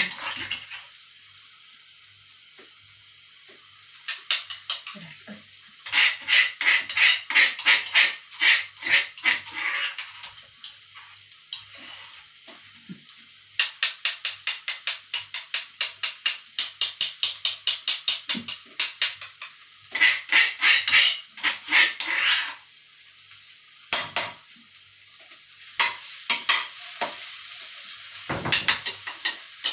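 A kitchen utensil striking in quick, even bursts of about three or four strokes a second, with short pauses between, while the bird chilies and garlic are prepared.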